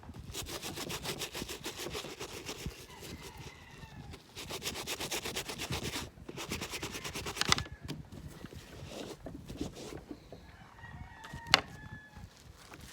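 Rapid, rhythmic scrubbing on an Air Force 1 sneaker, in two fast runs with a short break about four seconds in, then slower, lighter rubbing; a sharp tap about eleven seconds in.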